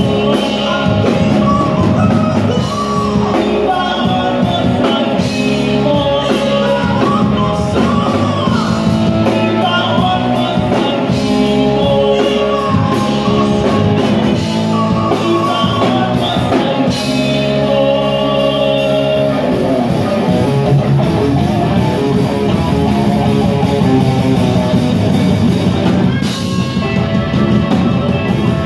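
Live rock band playing loudly: a singer over electric guitar and a drum kit.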